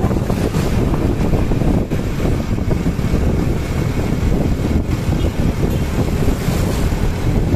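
Heavy wind buffeting on the microphone of a moving motorcycle, with steady road and engine rumble underneath; no horn sounds.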